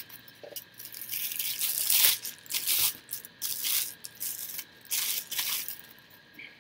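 Packaging rustling and crinkling in irregular bursts as an item is pulled out of a cardboard shipping box and unwrapped.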